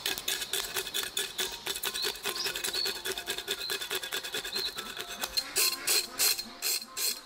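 A Chinese cleaver scraping the scales off a whole fish on a wooden chopping block: rapid, raspy scraping strokes, several a second, with scales ticking off the blade.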